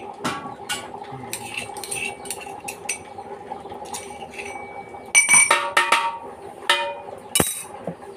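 Metal cooking utensils and pots clinking and knocking, with a run of ringing metal strikes about five seconds in and a sharp knock near the end.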